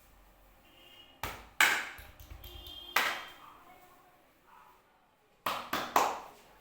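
Sharp hand strikes of a percussive head and shoulder massage: three spaced blows in the first half, then a quick run of three near the end.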